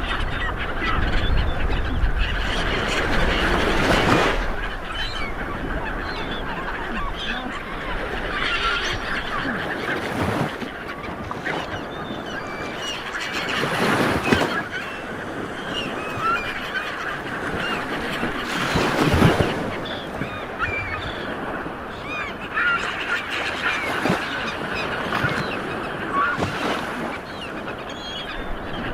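Sea water washing steadily, with a wave surging up about every four to five seconds. Many short high squeaky calls chatter over it throughout.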